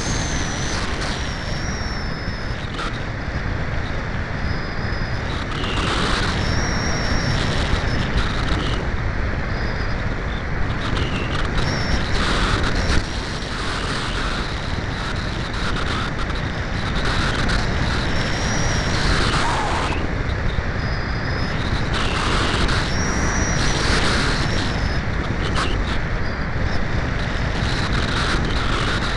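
Wind rushing over the microphone of a keychain camera carried aboard a Cularis RC glider in flight: a steady rough rush with a low buffeting rumble, broken every few seconds by short high whistles.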